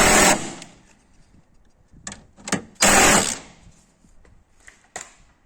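Two short bursts of a workshop power tool, the first stopping about half a second in and the second, shorter one about three seconds in, with a few sharp metallic clicks of tools between and after.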